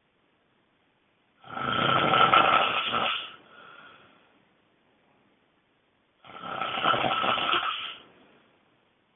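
A person snoring extremely loudly: two long snores about five seconds apart, the first trailing off into a fainter breath.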